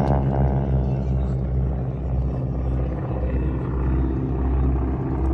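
Engines of aerobatic airplanes droning steadily, a low continuous hum.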